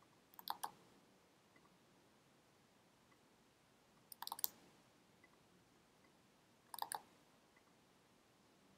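Computer clicking: three short bursts of a few sharp clicks each, about half a second in, around four seconds in and near seven seconds, over near silence.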